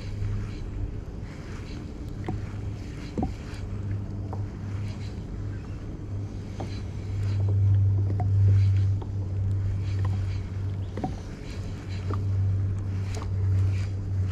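Spinning reel being cranked to retrieve a lure from a kayak: a low steady hum with scattered light ticks. The hum swells about halfway through and again near the end.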